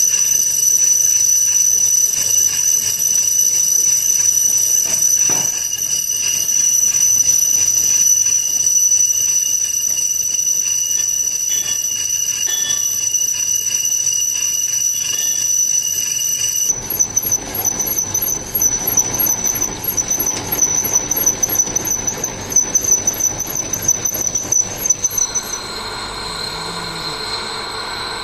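Metalworking machinery running with a steady, high-pitched metallic squeal. About 17 seconds in the sound changes abruptly to a squeal that pulses several times a second, which stops near the end and leaves a fainter machine noise.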